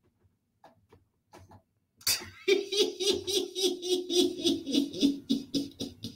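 A man laughing loudly in a long run of quick, even bursts, several a second, starting about two seconds in after faint breaths.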